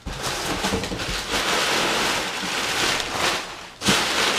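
Crumpled brown kraft packing paper crinkling and rustling as it is pulled out of a cardboard box, with a sharp, louder crunch near the end.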